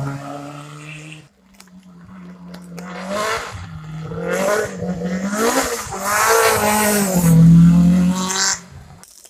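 Two rally cars on a wet tarmac stage. The first passes and drops out about a second in. The second approaches and passes close, its engine revving hard with the pitch falling and rising at each gear change, loudest near the end before cutting off suddenly.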